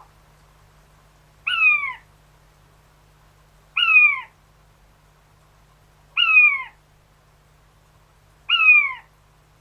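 King quail, probably a male, calling four times: each call is a short, falling, whistled note about half a second long, repeated evenly every two and a half seconds or so.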